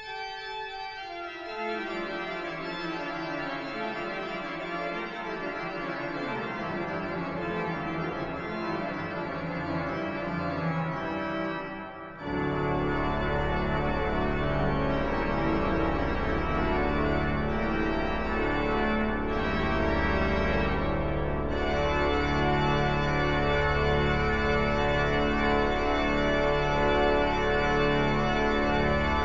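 Pipe organ playing full sustained chords. About twelve seconds in, deep pedal bass notes enter and the music grows louder.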